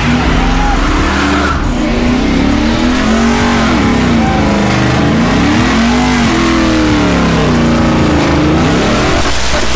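A car doing a burnout: its engine revving hard, the pitch rising and falling several times, over a steady rushing noise from the spinning tyres.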